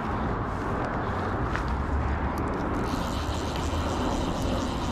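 Steady outdoor rumble and hiss with no clear pitch, heaviest in the low range. From about three seconds in, a brighter hiss with a few faint clicks joins it.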